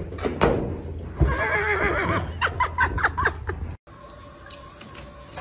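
A horse whinnies about a second in: a wavering call that breaks into a quick run of shorter calls, after a couple of knocks. Near the end it cuts to the quieter, steady hiss of water running from a kitchen tap.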